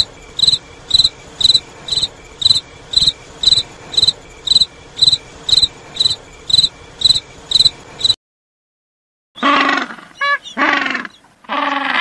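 A cricket chirping in short, high-pitched, evenly spaced chirps, about two a second. It stops after about eight seconds, and after a short pause a different animal's louder, falling calls begin.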